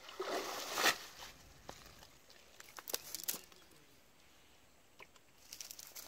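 A brief splash of water from a cast net at the water's edge in the first second, then scattered light clicks and rustles.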